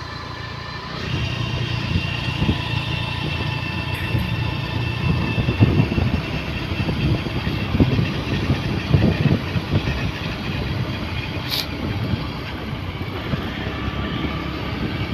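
Motorcycle engine running at cruising speed on the road, with wind gusting over the microphone. It gets louder about a second in.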